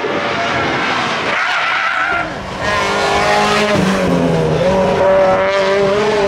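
Peugeot 206 rally car engine revving hard at speed, its pitch falling and climbing again through gear changes. The sound dips briefly about two seconds in.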